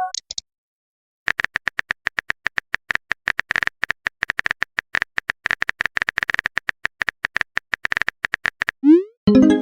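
Rapid, irregular clicks of a phone-keyboard typing sound effect for about seven seconds. Near the end comes a short rising swoop, then a message-notification chime.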